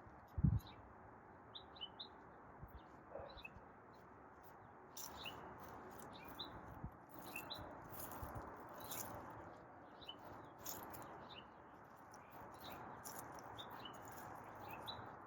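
Small birds chirping, short high chirps repeated at irregular intervals, faint over a steady outdoor hiss. A single low thump comes about half a second in, and faint rustling from about five seconds on.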